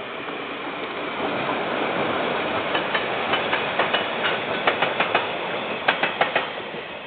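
Freight train passing close by, a steady rolling rumble that grows louder over the first couple of seconds. From about three seconds in come sharp clacks in quick groups as the wagons' wheels cross rail joints.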